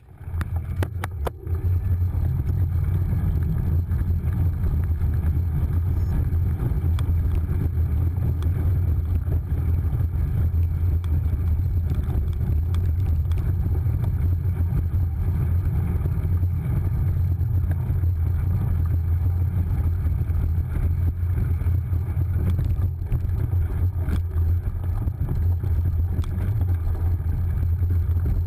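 Steady low rumble of wind buffeting and ground vibration on a bicycle-mounted action camera as the bike rides over a dirt course. It starts about a second in, just after a few sharp clicks.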